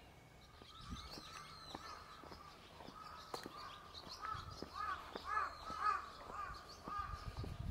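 A crow cawing a quick series of calls about halfway through, with smaller birds chirping higher and faint footsteps.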